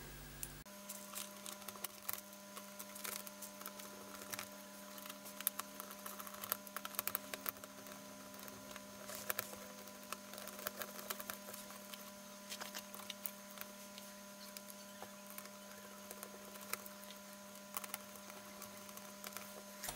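Faint scattered clicks and light taps of hands fitting a TV's small speakers and their wiring back into the metal chassis, over a faint steady hum.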